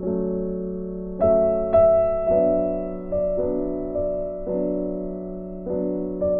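Slow, gentle piano background music: notes and chords struck one after another, each left to fade before the next.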